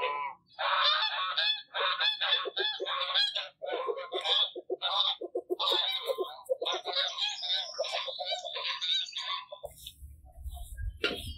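Domestic geese honking in a rapid, unbroken string of loud, harsh calls that stops about two seconds before the end. A low rumble follows near the end.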